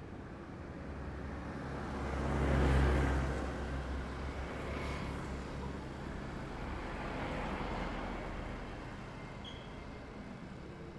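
Road traffic passing on a city street: one vehicle passes close with a low engine hum that swells to a peak about three seconds in and fades, and a second, quieter pass swells around seven to eight seconds.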